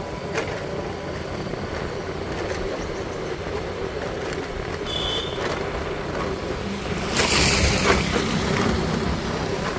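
Motorcycle running at riding speed, with wind rushing over the microphone. About seven seconds in, another motorcycle passes close by and the noise briefly grows louder.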